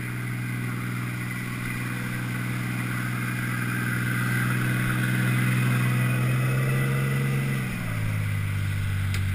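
Motorboat engine running steadily over wind and water hiss, its pitch dropping to a lower steady note near the end as it throttles back.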